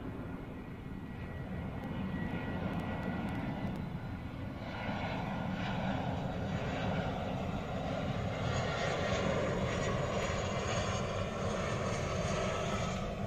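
Jet airliner engines on approach: a steady low rumble with a rushing roar that swells and grows louder from about five seconds in.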